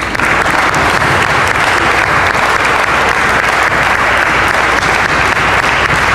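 Audience applauding: many hands clapping together, breaking out all at once and holding steady.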